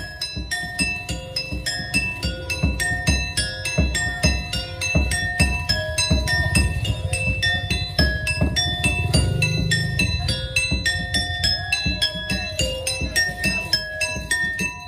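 Music: a quick tinkling melody of short, bell-like high notes, with low thumps underneath.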